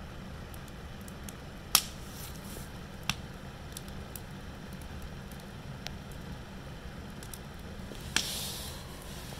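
Wood fire burning in a metal fire pit: a steady low rumble with sharp pops from the burning logs, a loud one just under two seconds in, another about three seconds in, and one near the end followed by a short hiss.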